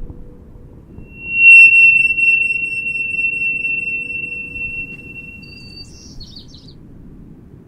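A single loud, high ringing tone swells up about a second and a half in, then slowly fades away over about four seconds. A few quick chirps follow near the end, over a faint steady low hum.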